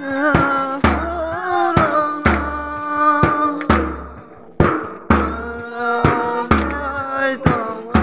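Music: a singing voice, held and bending notes, over a steady drum beat with deep bass strikes.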